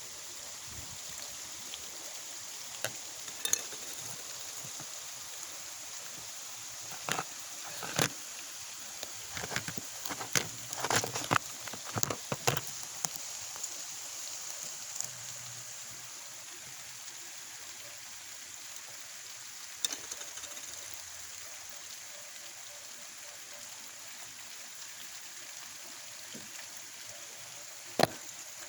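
Steady rain falling as an even hiss, with scattered sharp ticks of heavier drops striking a hard surface, a quick flurry of them in the first half and a few single ones later.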